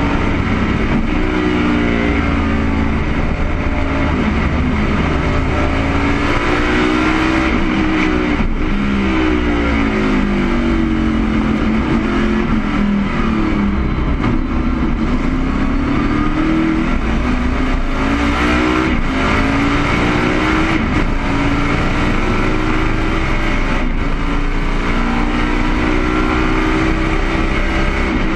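Race car engine at racing speed, heard from inside the cockpit, its revs climbing and falling over and over through gear changes, over a steady rush of wind and road noise.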